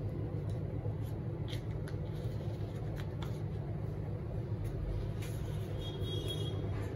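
Light clicks and crinkles from a plastic spoon and a foil cake plate being handled, over a steady low background rumble.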